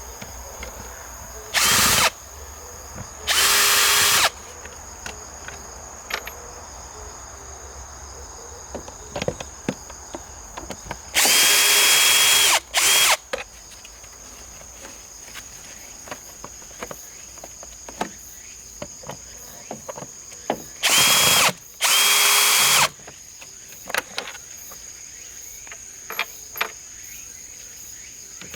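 Power drill running in about six short bursts of a second or so each, likely driving the screws of the air filter housing. Small clicks and taps come between the bursts, and cicadas keep up a steady high buzz throughout.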